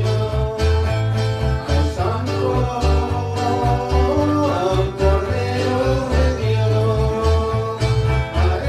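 Live praise music: an electronic keyboard playing chords over a bass line in a steady, regular beat, with a strummed acoustic guitar.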